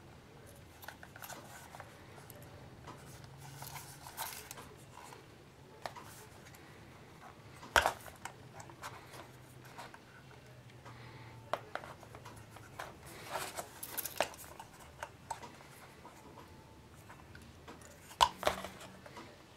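Small ammo-style storage box being handled, its lid and latches clicking and knocking: scattered light clicks, with two sharper clacks about eight seconds in and near the end.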